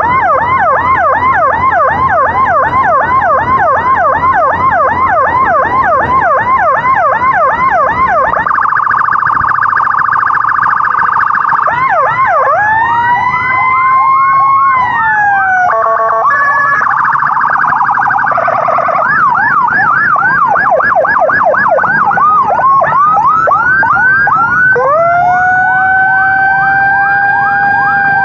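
Electronic emergency siren sounding loud and changing through its tones. It starts with a fast yelp of about three or four sweeps a second, then a steady rapid warble, then slow rising-and-falling wails with short bursts of quick choppy sweeps between them.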